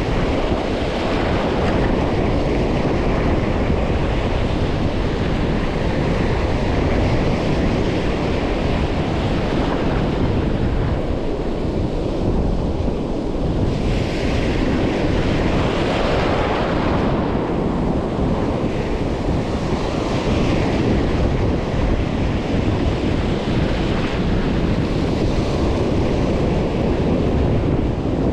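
Surf breaking on a beach, a steady wash with a few louder swells of hiss from breaking waves, under heavy wind buffeting the microphone.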